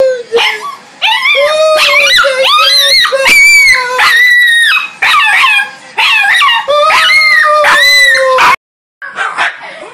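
A puppy howling: a string of long, wavering howls, each about a second or more, that cut off suddenly near the end.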